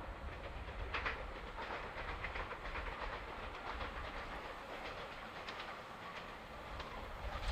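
A train passing, its wheels clattering with irregular clicks over a low rumble.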